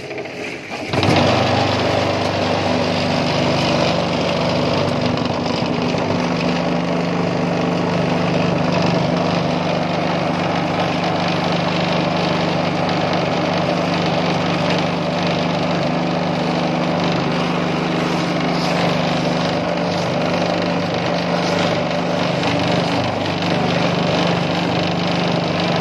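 Concrete vibrating table switching on about a second in and running with a steady mechanical hum, shaking a steel mould full of wet concrete to compact it for a precast wall panel.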